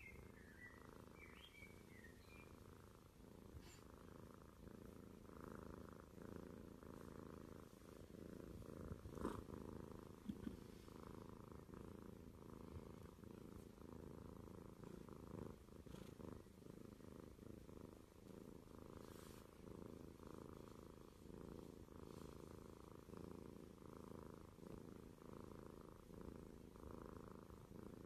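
A domestic cat purring steadily while being stroked, the purr swelling and easing in a regular rhythm with its breathing. A sharp click about nine seconds in, followed by a couple of small ticks, is the loudest thing.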